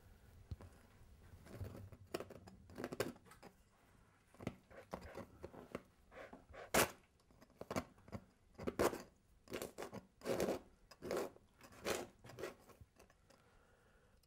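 A painting tool scraping and scratching across a surface in a run of irregular short strokes, the sharpest one about halfway through, dying away near the end.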